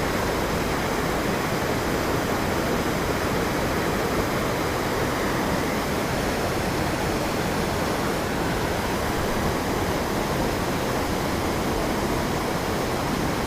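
Steady rush of a waterfall pouring into a creek, an even, unbroken noise.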